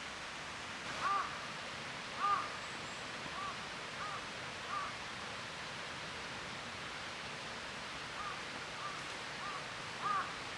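A crow cawing in a loose series of short calls, the loudest about one and two seconds in and again near the end, with softer ones between, over a steady outdoor hiss.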